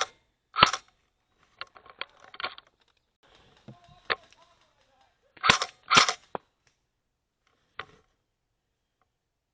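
Airsoft guns firing in short bursts of pops: one burst about half a second in and two close together around the middle, with fainter scattered cracks and clicks between them.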